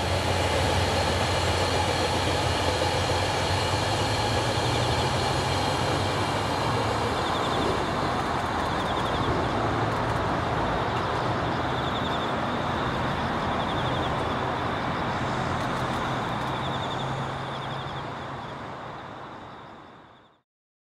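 A passenger train of 77 series coaches hauled by a JR Freight DF200 diesel locomotive running past on the track: a steady rumble of wheels on rail with a low engine hum underneath, fading away near the end.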